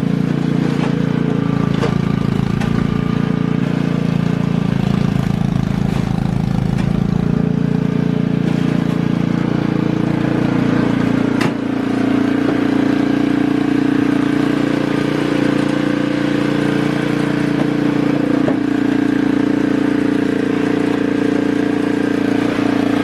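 An engine running steadily at a constant speed, with a click and a slight change in its note about eleven seconds in.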